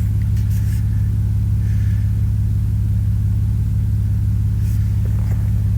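Tractor engine running steadily at an even speed, a constant low hum.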